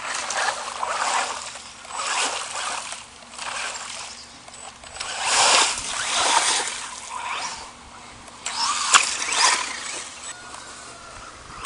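Electric radio-controlled car splashing through a muddy, water-filled ditch, sending water and mud spraying in repeated surges about once a second, with a sharp knock about nine seconds in.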